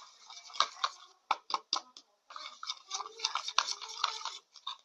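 A spoon stirring glue in a bowl for slime, scraping and clicking against the bowl in quick, irregular strokes, with a short pause about two seconds in.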